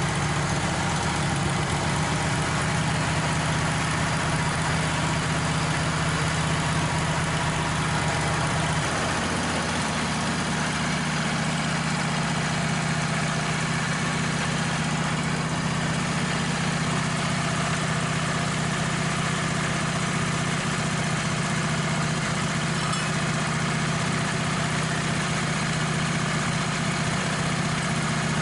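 Wood-Mizer LT15 portable band sawmill running steadily, its sawhead engine humming, with a change in its low tone about nine seconds in.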